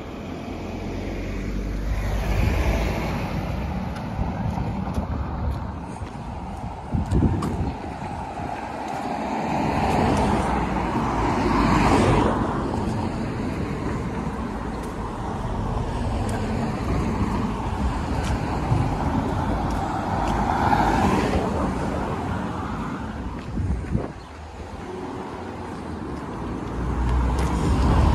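Road traffic: several cars pass one after another close by, each swelling to a peak and fading away, with a low rumble at the loudest moments.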